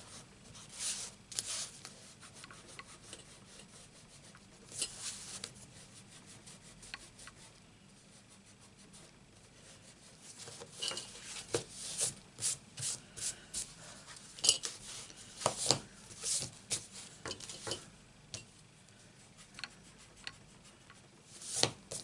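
Rubber eraser rubbing pencil marks off card stock in short bursts of scratchy strokes, with a lull partway through and most of the strokes in the second half.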